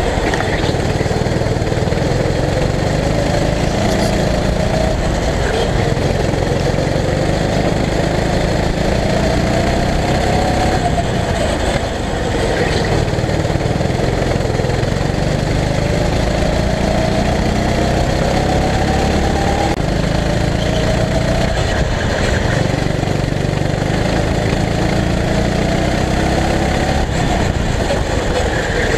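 Go-kart engine heard from on board the kart, running hard through a lap. Its pitch climbs for several seconds at a time as it accelerates, then drops when it lets off for corners, about four times over.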